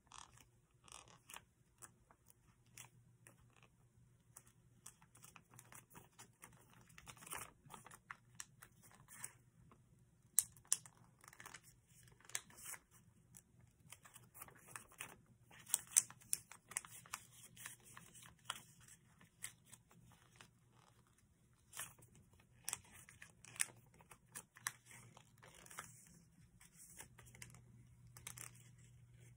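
A sheet of thick paper being folded and creased by hand: faint, irregular crinkling and crackling with scattered sharp snaps, the loudest about 10 and 16 seconds in, over a steady low hum.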